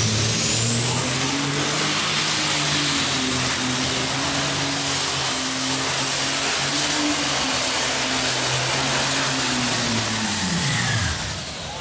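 Pulling tractor's engine running flat out as it drags a weight-transfer sled, with a high whine that climbs over the first two seconds and then holds. Near the end the engine note drops and fades as the pull ends.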